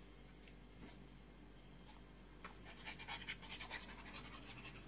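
Faint scratchy rustles and small ticks of hands handling paper and a squeeze bottle of craft glue while glue is put on a paper strip, mostly in a cluster in the second half.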